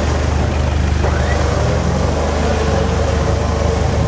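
Off-road 4x4 pickup engine running steadily at low speed while crawling up a rutted, muddy slope.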